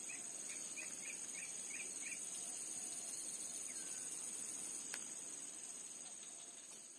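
Steady high-pitched chorus of insects, crickets or cicadas, with a bird giving a quick run of about eight short chirps in the first two seconds and a single click about five seconds in; the sound fades away near the end.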